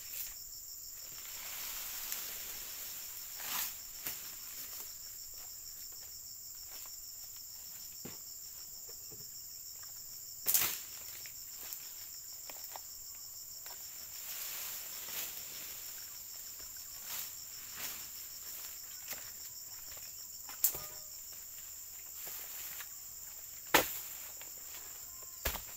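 A steady high-pitched insect chorus over soft rustling, broken by a few sharp knocks from oil palm harvesting work with a long pole tool. The loudest knocks come about ten seconds in and again near the end.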